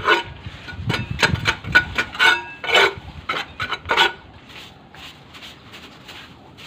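Scraping and clattering of debris being shifted on the concrete floor of an emptied tomb niche: a run of sharp knocks and scrapes over the first four seconds, then fainter rubbing.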